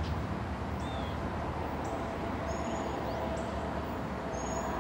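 Small birds chirping a few times, short high calls, over a steady low rumble.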